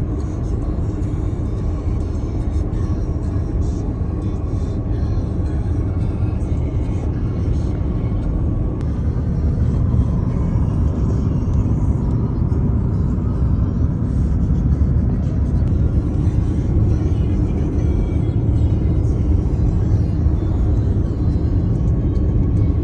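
Car interior noise while driving: a steady low rumble of tyres and engine, with music playing along with it.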